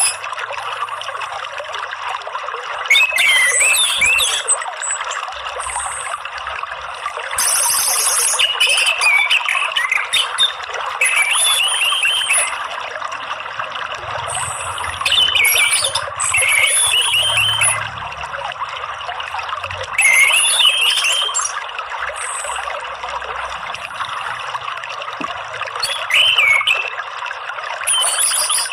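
Orange-headed thrush singing short, varied whistled phrases every few seconds over a steady trickle of running water.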